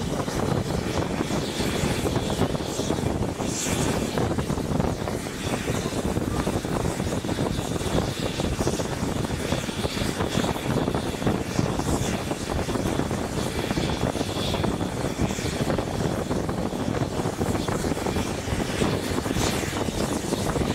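Steam-hauled passenger train running along the line, heard from an open carriage window: a steady rumble of the wheels on the track.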